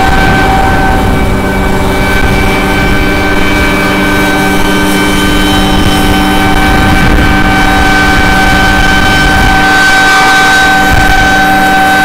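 John Deere S790 combine harvester running steadily while cutting oilseed rape, its engine and threshing gear making a constant hum with a whine over it.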